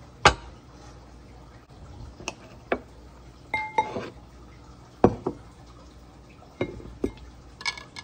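Serrated kitchen knife, plate and glass bowl clinking and knocking as cut tomato pieces are moved from the plate into the bowl: a string of sharp, irregular clinks, one of them ringing briefly about halfway through.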